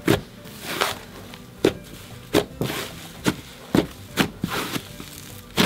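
Slime sizzles: fingers pressing into a foam-soap-inflated yellow butter slime make a string of sharp crackling pops, each trailing a short hiss, about one every half-second, as trapped air bubbles burst.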